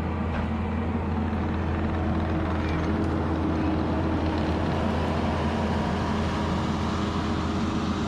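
Kubota SVL75 compact track loader's diesel engine running steadily, with a constant low hum.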